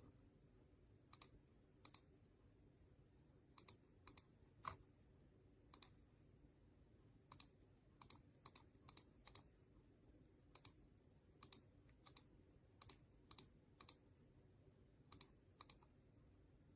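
Faint, irregularly spaced clicks of buttons or keys being pressed one at a time, about two dozen in all, over a low steady hum.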